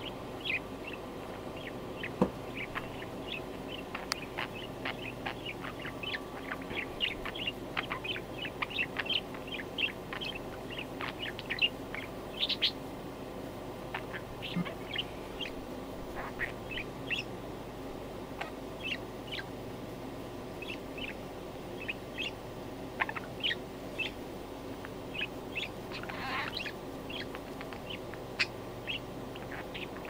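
Pet budgerigar chattering in short, high chirps, many close together at times, as its head feathers are scratched by a finger. A longer sweeping call comes about twelve seconds in, and another near twenty-six seconds.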